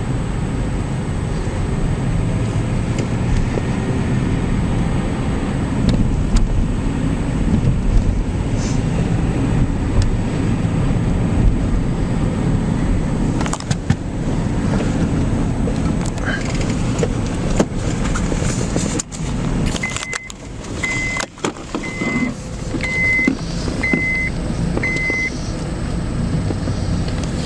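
Car driving, with a steady low road and engine rumble heard from inside the cabin. A short run of six electronic beeps, about one a second, comes about twenty seconds in.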